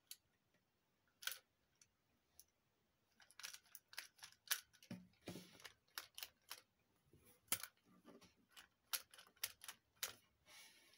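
Faint plastic clicks and rattles from a Kenner Man-Bat action figure's wing-flapping mechanism, worked by repeatedly pressing the button in its back so the wings flap and the head lifts. A few clicks at first, then a quick irregular run of them from about three seconds in.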